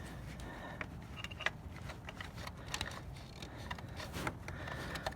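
Scattered light clicks and taps of plastic engine parts being handled by hand: a PCV hose being lifted aside and the oil separator housing being worked into place, over a low steady hum.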